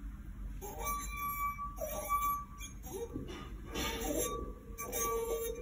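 Wet fingertip rubbing around the rim of a wine glass partly filled with water, making the glass sing: a thin ringing tone that comes and goes with the rubbing, joined about three seconds in by a lower steady tone.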